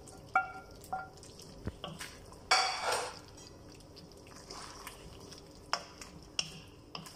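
A metal spoon clinking and scraping against a pan as thickened teriyaki sauce is poured and scraped out over chicken: a few light knocks, a longer scrape about two and a half seconds in, then scattered small clicks.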